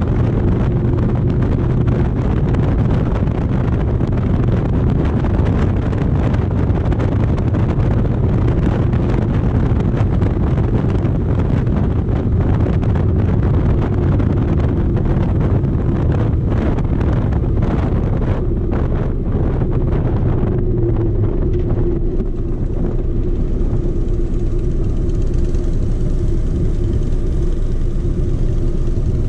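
Harley-Davidson motorcycle engine running at road speed, with wind rush over the bike, heard from the rider's seat. The engine eases off about two-thirds of the way through as the bike slows for traffic.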